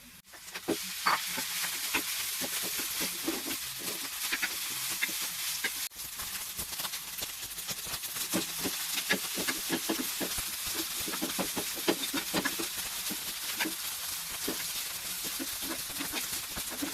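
Butter fried rice sizzling in a pan while a spatula stirs and tosses it, scraping the pan with many short, irregular strokes over a steady frying hiss. The sound breaks off briefly about six seconds in.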